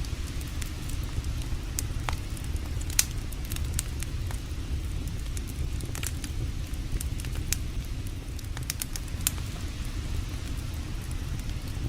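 Campfire crackling, with irregular sharp pops scattered throughout, the loudest about three seconds and nine seconds in, over a steady low rush of creek water.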